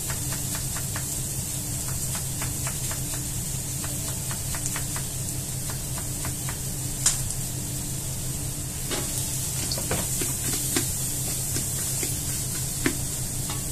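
Chopped onions frying in oil in a large pot, a steady sizzle. Over it come short clicks of a knife on a cutting board as an onion is chopped, and a wooden spatula stirring the onions near the end.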